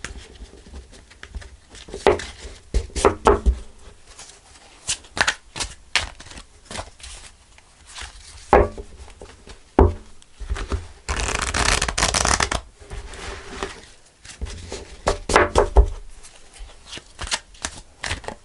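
Tarot cards being shuffled by hand: a string of quick snaps and taps, with one longer continuous riffle a little past the middle.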